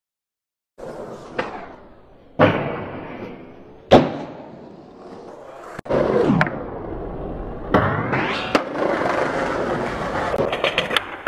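Skateboard wheels rolling on concrete, broken by several sharp cracks and slaps of the board popping and landing. It starts after a moment of silence and grows louder and busier about halfway through.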